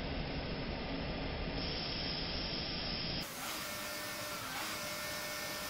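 Audi Q7 engine running with a steady hiss of exhaust gas blowing out of the tailpipe, pushing carbon-laden water and foam out during a carbon flush. The sound changes abruptly about three seconds in, becoming quieter and thinner.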